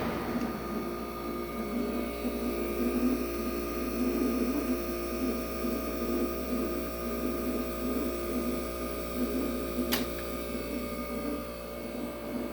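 Reciprocating piston compressor of a 1968 Philco Ford Noiseless window air conditioner running on its own once the fan is switched off, with the fan's air noise falling away at the very start. It runs fairly smoothly: a steady hum with a faint pulsing, and a single sharp click about ten seconds in.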